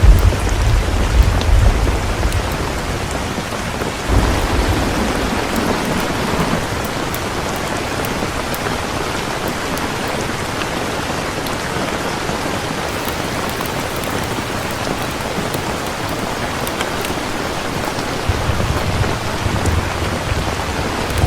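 Steady heavy rain, with low thunder rumbles at the start, about four seconds in, and again near the end.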